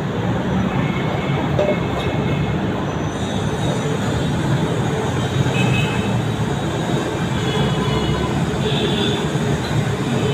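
Steady, loud rumbling background noise with a constant low hum.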